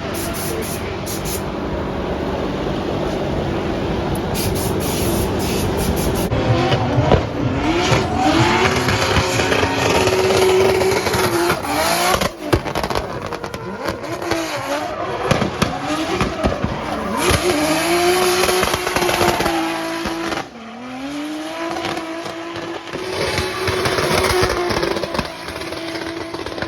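Toyota 2JZ straight-six in a Nissan Silvia S14 drift car revving hard, its pitch swinging up and down again and again as the throttle is worked through a drift, with tyres squealing. About 20 seconds in the revs drop sharply, then climb and hold high.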